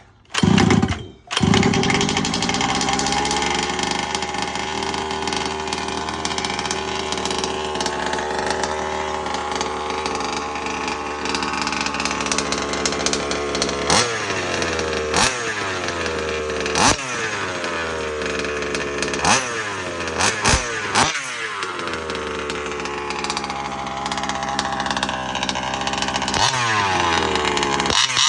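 Small two-stroke engine of a gas RC car catching after a couple of bursts about a second in, then running steadily. In the second half it is blipped sharply several times, the pitch dropping back after each blip.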